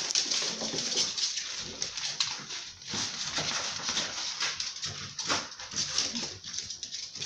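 German shorthaired pointer puppies playing, making small puppy noises over a busy run of quick scratchy clicks and scuffles.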